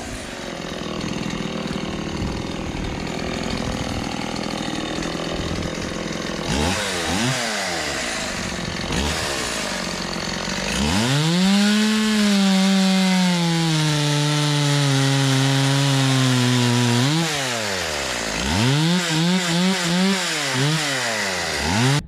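Stihl two-stroke chainsaw revving up and down in quick blips. About halfway through it is held at high revs for several seconds, its pitch slowly sagging, then blipped several more times before cutting off suddenly.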